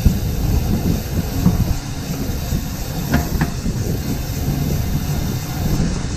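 Wind buffeting the microphone of a camera carried on a moving bicycle: a steady low rumble.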